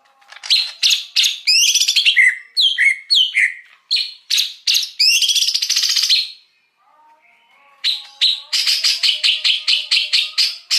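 Green leafbird (cucak hijau) singing loudly: a varied jumble of whistles, chirps and falling slurred notes, a short lull, then a fast run of sharp repeated notes at about five a second.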